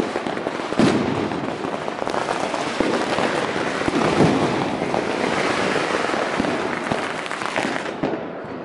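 Many fireworks and firecrackers going off at once: a dense, continuous crackle packed with bangs, the loudest about a second in and around four seconds in. Near the end the sound turns duller.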